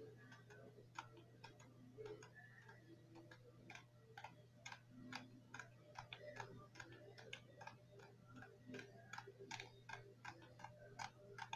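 A radio giving out faint, sharp clicks, several a second at uneven intervals, over a steady low hum.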